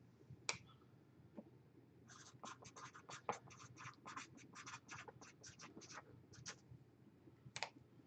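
Faint scratching: a quick run of short scratchy strokes and light taps starting about two seconds in, with a few isolated clicks before and after.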